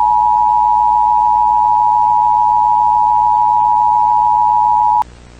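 Emergency Alert System attention signal: a loud, steady two-tone alarm held on one pitch, which cuts off abruptly about five seconds in and leaves only a low broadcast hiss and hum.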